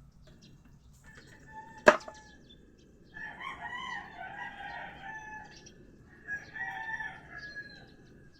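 A single sharp click about two seconds in, then a rooster crowing twice, the first crow long and the second shorter.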